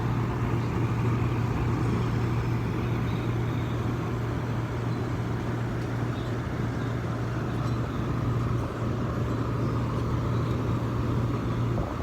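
Window air conditioner running: fan noise with a steady low compressor hum, which its owner says doesn't sound very good. The unit is not cooling, and the owner suspects it has lost its Freon.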